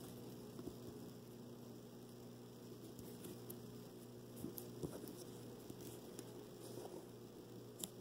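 Faint rustling and scattered soft crackles of origami paper being folded and creased by hand, over a steady low electrical hum.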